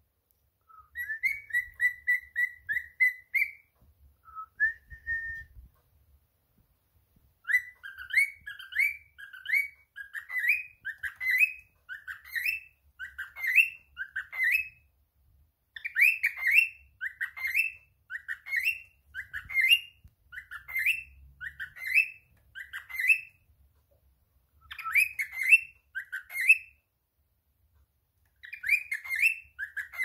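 Male grey cockatiel singing. It opens with a quick run of short whistled notes, then gives long phrases of short upward-sliding whistles in quick succession, broken by a few pauses.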